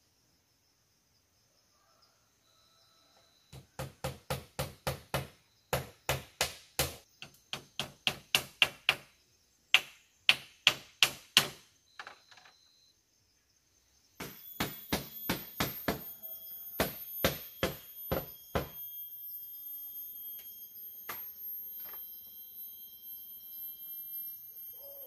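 Hammering on bamboo, starting a few seconds in: quick runs of six to eight sharp blows, about four a second, as slats are fixed to a bamboo wall.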